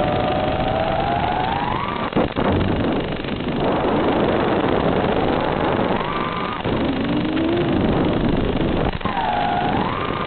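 FPV quadcopter's brushless motors whining over a steady hiss, heard from on board, the pitch gliding up and down with the throttle. Brief dropouts come about two seconds in and near the end.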